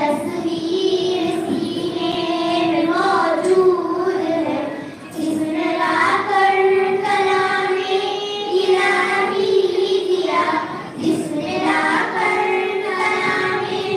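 A group of young girls singing a devotional Islamic naat together, one carrying the melody on a microphone, in long held notes with short breaks between phrases.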